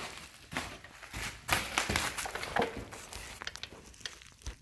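Irregular rustling and scattered sharp clicks of something being handled close to the microphone.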